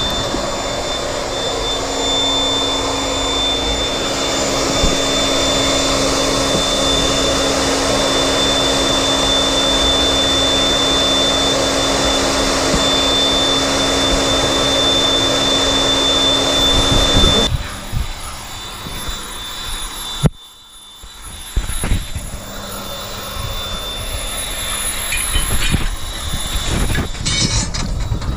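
Magtron magnetic-base drill running steadily as it drills steel plate, with a constant high whine and screech. It stops suddenly about two-thirds of the way in, and quieter, uneven knocking work noises follow.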